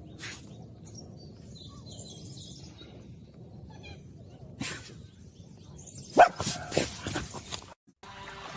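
A dog gives a few short, sharp yelps about six seconds in, over a low, steady background noise, with a single knock shortly before.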